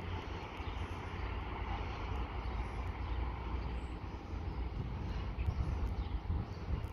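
Distant diesel train running, a steady low rumble with no horn or other distinct event, mixed with wind on the microphone.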